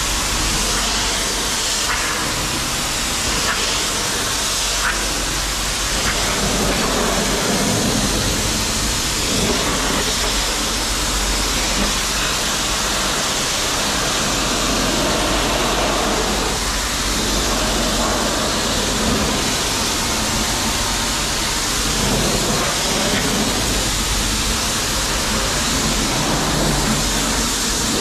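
High-pressure wash wand spraying water onto a truck: a steady hiss of spray that swells and eases a little as it moves.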